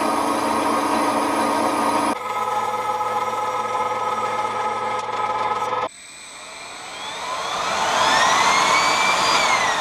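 Metal lathe running as it turns aluminium workpieces, in two clips joined about 2 s in. About 6 s in it gives way to a high whine that rises steadily in pitch for about three and a half seconds and starts to fall near the end, as the turbojet's rotor shaft spins up in its bearing housing.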